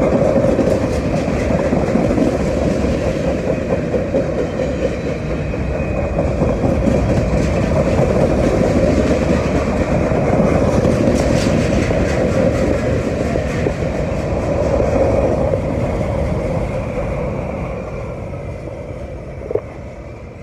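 Freight train of high-sided open-top cars rolling past, wheels running steadily on the rails, then fading in the last few seconds as the rear of the train moves away. One short sharp knock near the end.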